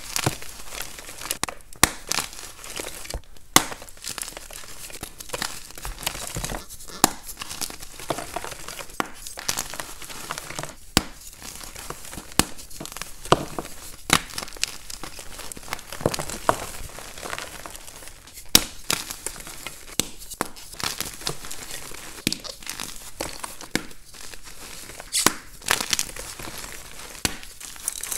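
Soft blocks of plain gym chalk (magnesium carbonate) crushed and crumbled in bare hands: a continuous dry, powdery crunching with frequent sharp cracks at irregular moments as pieces snap off.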